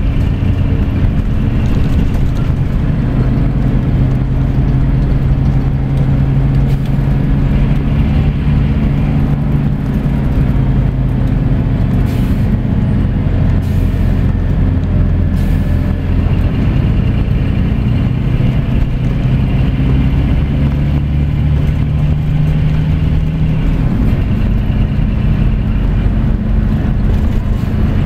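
Scania coach's diesel engine and road noise heard from a seat near the rear of the cabin while driving, a steady low drone whose pitch rises slowly twice as the coach pulls.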